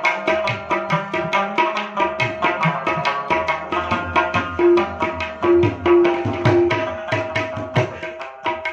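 Afghan rabab plucked in quick, dense strokes over a tabla accompaniment: ringing treble-drum strokes and low bass-drum strokes that bend in pitch.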